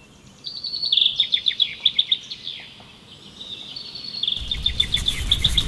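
Songbird chirping in quick trills, two runs of rapid high chirps with a short pause between them. A low rumble swells in near the end.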